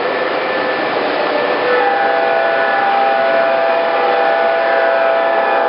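O-gauge MTH Premier BNSF ES44AC model diesel locomotive running toward the listener on three-rail track: a steady rumble of the model rolling and its onboard diesel sounds. About two seconds in, its sound system starts a long multi-note chord-horn blast that holds steady.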